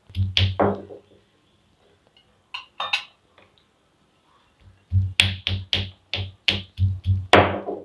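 Stone roller of an ammi grinding stone knocking down on fresh green turkey berries on the stone slab, cracking them open to free the seeds. A few knocks come in the first second and two more near the middle, then a quick run of about ten knocks, roughly three a second, near the end.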